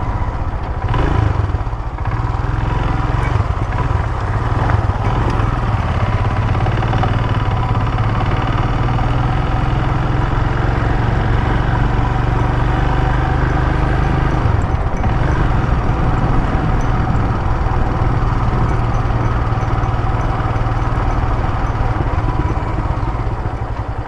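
Royal Enfield motorcycle engine running steadily while riding, with wind noise on a helmet-mounted mic. The engine note dips briefly about fourteen and a half seconds in.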